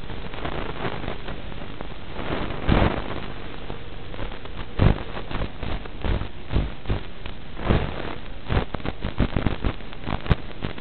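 Steady static hiss with irregular crackles and pops, the crackling growing denser about eight seconds in. It is typical of the audio channel of an analog FPV video feed recorded in the goggles.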